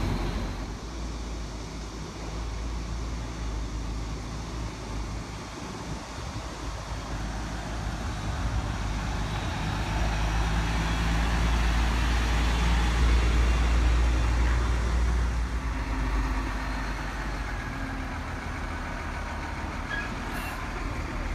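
Heavy diesel semi-truck tractor units running as they drive past one after another hauling loaded trailers: a steady low engine rumble with tyre and road noise, growing louder about two-thirds of the way through as a truck comes close, then easing off.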